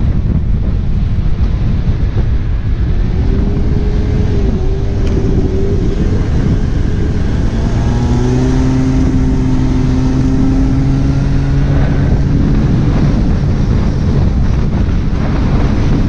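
Strong wind rushing over the microphone, with an engine's tone coming through. The engine tone wavers a few seconds in, then holds steady for about five seconds in the middle before fading back into the wind.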